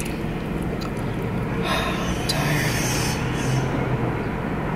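Steady low rumble of a car's cabin, with a brief rush of hissing noise about two seconds in, lasting about a second and a half.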